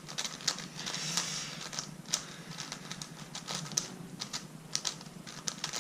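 Qiyi Galaxy V2 Megaminx being turned by hand: quick, irregular plastic clicks and clacks as its faces snap round, with a short rubbing hiss about a second in.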